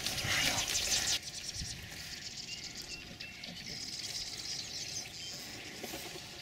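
A brief rustling noise in the first second, then quiet marsh ambience with faint, short, high bird chirps.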